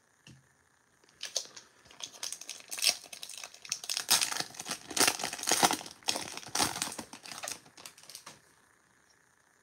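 Foil wrapper of a Topps baseball card hobby pack being torn open and crinkled by hand. The crackling rustles start about a second in and go on in an uneven run until shortly before the end.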